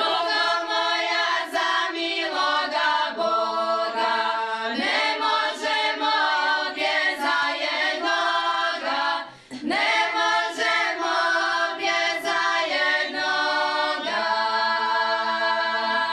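A group of women singing a Šokac folk song together, unaccompanied. There is a short break for breath about nine seconds in, and the singing ends right at the close.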